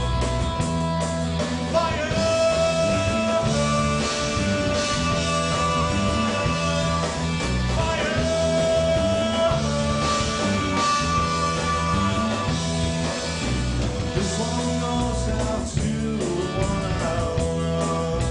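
Rock band playing live: a singer holding long notes over guitar and a stepping bass line.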